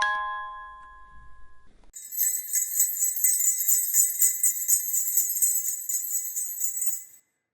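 A last music-box chime note rings out and fades, then a cluster of jingle bells is shaken steadily for about five seconds and stops suddenly near the end.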